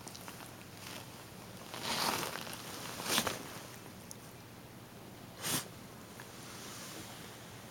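Shiba Inu with kennel cough giving three short breathy huffs, about two, three and five and a half seconds in; the one near three seconds is the loudest.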